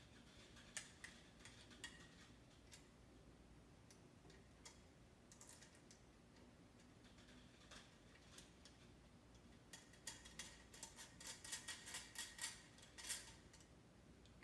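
Faint scattered clicks and light taps of small parts being handled, becoming a quick run of clicks about ten seconds in: the nuts being fitted back onto the UV lamp's magnetic mounting unit by hand.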